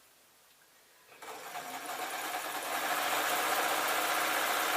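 Sewing machine starting up about a second in, picking up speed, then running steadily as it stitches a seam.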